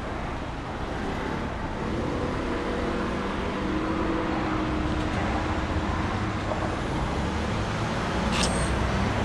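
Steady road-traffic noise, with the low hum of a motor vehicle's engine growing slightly louder in the middle.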